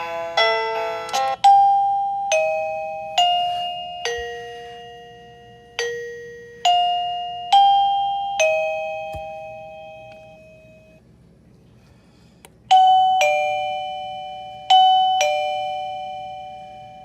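Wireless caregiver pager receiver playing electronic doorbell chime tones as its ringtones are tried out. A run of single notes that each ring and fade, a pause of about two seconds, then two two-note ding-dong chimes near the end.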